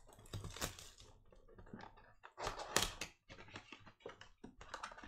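Cardboard trading-card blaster box being torn open and its plastic-wrapped packs handled: irregular crinkles, taps and clicks, loudest a little over halfway through.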